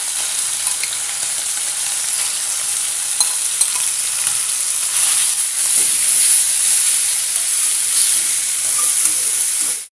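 Raw chicken pieces sizzling in hot coconut oil in a wok as they are tipped in and stirred with a metal spatula, a steady frying hiss with small crackles. The sizzle cuts off suddenly near the end.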